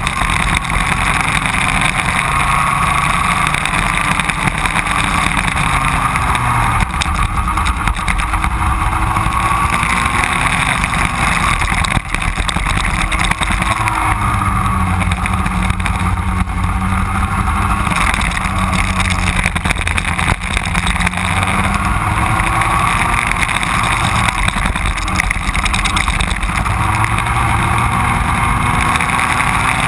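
Racing kart engine at race pace, heard from a camera mounted on the kart, its note rising and falling repeatedly through the corners.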